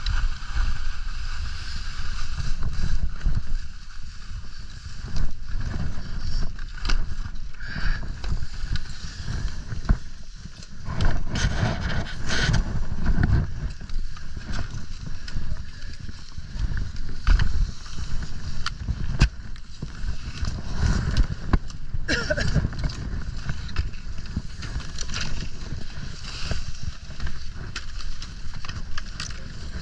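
Skis sliding and scraping over packed, tracked snow, with wind rumbling on the microphone.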